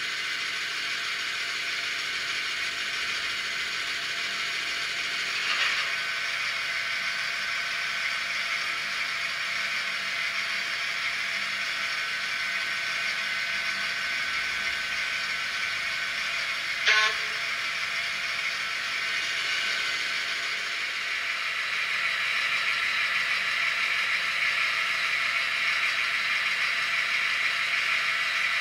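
Sound decoder of a Piko H0 model of the DR class 118 diesel locomotive playing the diesel engine running steadily through the model's small speaker, with a short sharp sound about seventeen seconds in. The engine sound grows louder in the last third.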